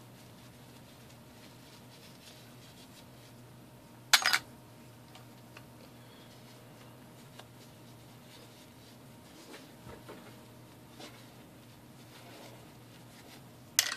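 Small metal battery terminals clattering against a clear plastic container as they are handled: two short, sharp clatters, one about four seconds in and one near the end, with a few soft taps between.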